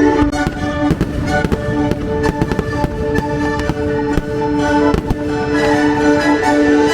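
Fireworks bursting in rapid, irregular bangs over a loud orchestral show soundtrack.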